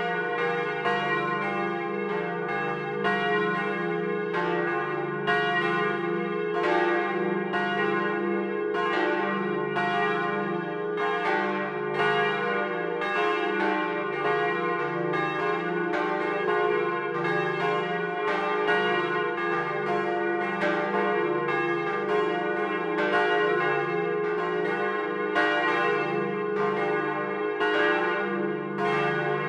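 Swinging church bells ringing, recorded up in the bell tower: overlapping strikes about once a second over a sustained ringing hum.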